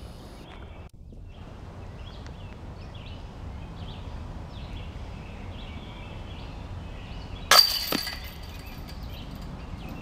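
Disc golf disc slamming into the hanging chains of a Prodigy metal basket: a sudden loud metallic clash with ringing about three quarters of the way through, followed by a smaller clank a moment later.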